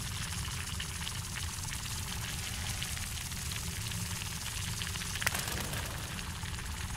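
Steady liquid-like ambient sound effect, a low rumble under a hiss, with one short sharp sound a little after five seconds in.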